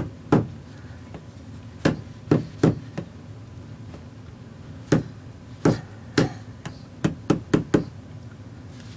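Hammer tapping, about a dozen sharp knocks in irregular groups, ending with four quick taps in a row near the end.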